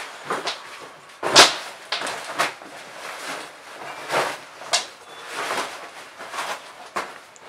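Black leather jacket rustling and swishing in uneven bursts as it is pulled off, with a few sharper, louder swishes as the sleeves come free.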